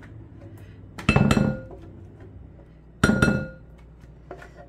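Two sharp glassy clinks about two seconds apart, each ringing briefly: the plastic blender jar knocked against the rim of a glass mixing bowl as the last of the batter is emptied out.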